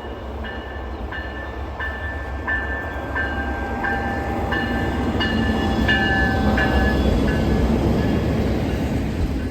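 Freight train rolling by with a low rumble that builds in the second half, over a metallic ding repeating about one and a half times a second.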